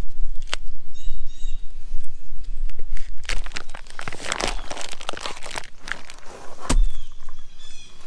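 Cryovac plastic wrap being cut and pulled off two slabs of raw pork spare ribs. A sharp click about half a second in is followed by a spell of loud crinkling and rustling of the plastic, then a thump near the end.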